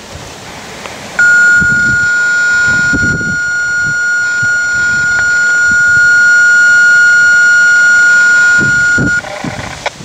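Steady electronic alert tone held at one pitch for about eight seconds, starting and cutting off abruptly, with wind gusting on the microphone.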